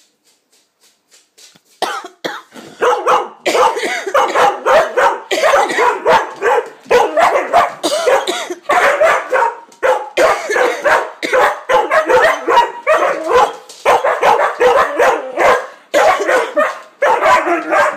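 Rough collie barking and yapping in rapid, near-continuous volleys starting about two seconds in, set off by a person's coughing, which is mixed in with the barks.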